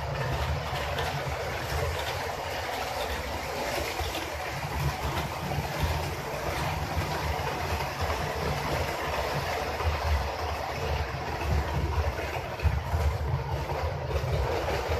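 HO scale model electric trainset running past, a steady motor whir and wheel-on-rail running noise with faint irregular clicks as the cars cross the track joints and points.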